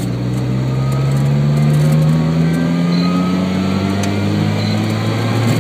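Car engine heard from inside the cabin, pulling under acceleration, its note rising slowly and steadily as the revs climb.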